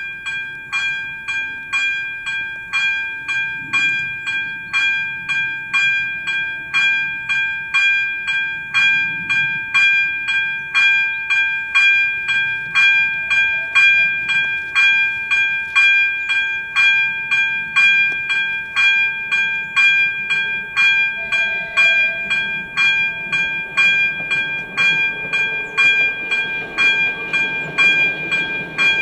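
AŽD ZV-02 electronic level-crossing bell ringing an even, fast series of dings, warning that a train is approaching. A low rumble builds over the last few seconds.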